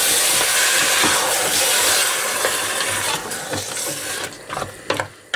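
Freshly added chopped tomatoes and diced sweet potato sizzling and hissing in a hot stainless steel pot as they are stirred with a wooden spoon. The hiss fades away about three to four seconds in, leaving a few knocks and scrapes of the wooden spoon against the pot.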